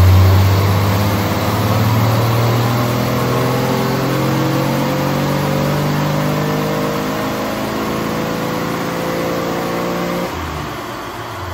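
Dodge M37's flathead inline-six engine pulling under load on a chassis dyno, its revs climbing slowly and steadily, then dropping back abruptly about ten seconds in as the run ends. The owner says its ignition is not firing consistently and the engine needs a tune-up.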